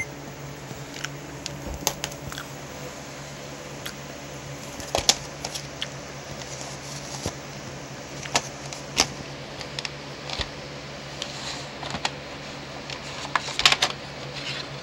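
Scattered plastic clicks and taps from handling a VHS cassette and its clamshell case, with a cluster of clicks near the end, over a steady low hum.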